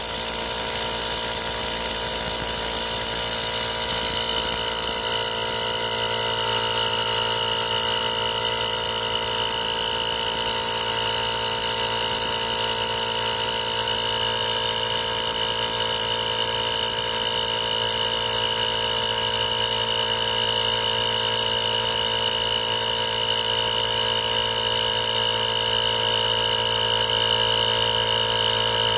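TOTAL TACLI2001 20V cordless tyre inflator, a single-piston compressor, running steadily while pumping up a punctured car tyre. It is a constant mechanical drone with a steady whine that grows slightly louder as it goes.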